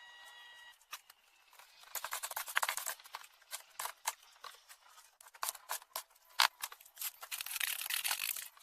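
Cement mortar being worked with a trowel: irregular scrapes and short taps, thickest near the end.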